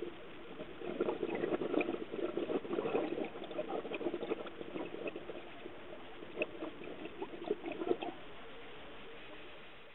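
Air bubbles crackling and bubbling underwater over a steady hiss. The bubbling starts about a second in, runs in an irregular stream with a few sharper pops near the end, and stops at about eight seconds.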